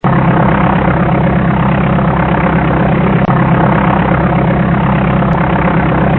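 Powered parachute engine and propeller running steadily at cruise, loud and close, with a steady low drone.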